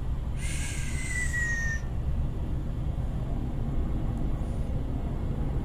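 Steady low rumble of a cable car gondola riding along its cable, heard inside the cabin. About half a second in, a short hissing squeal falls slightly in pitch and stops after about a second and a half.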